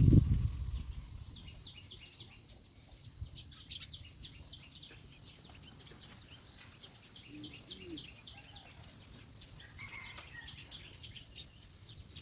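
Steady high-pitched insect drone with rapid, repeated chirping calls over it, in clusters. A brief low rumble comes right at the start.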